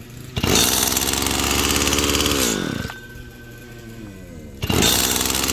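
Stihl FS85 brushcutter's two-stroke engine pull-started, firing on the pull and running at an idle set a bit high for about two seconds, then winding down in pitch and stopping. A couple of seconds later it is pulled again and fires at once.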